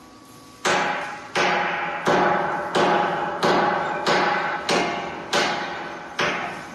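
Hammer blows on steel plate, nine evenly spaced strikes about three every two seconds, starting under a second in. Each strike rings out and fades before the next.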